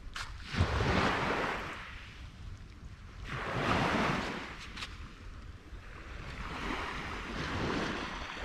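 Small waves washing onto a sandy beach, the surf noise swelling and fading three times.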